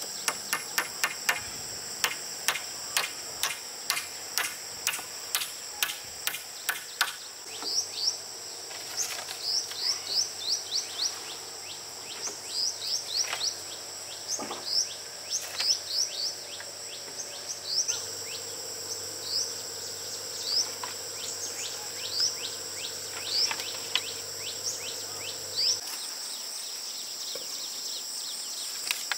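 Steady high-pitched insect drone with birds calling in short falling chirps through the middle. Over the first seven seconds a quick run of sharp knocks, about three a second, stops abruptly.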